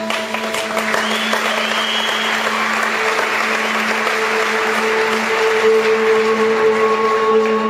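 Audience applauding over music with long held notes; the applause swells in about a second in and keeps going.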